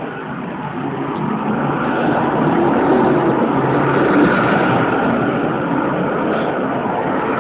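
City street traffic: cars, a small truck and a motor scooter pulling away and passing close by, engines accelerating, getting louder from about a second in to a peak near the middle. Recorded through a mobile phone camera's microphone, so the sound is thin and dull.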